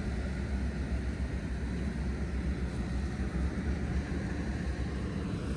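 Vintage 1980s GE Superthrust window air conditioner running: a steady low hum from the compressor under an even rush of fan air.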